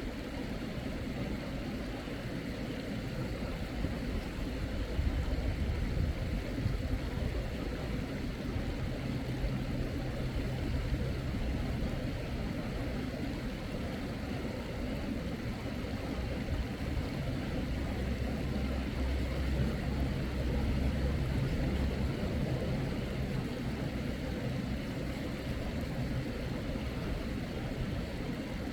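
Valley stream water running: a steady rushing flow with a low, shifting rumble underneath.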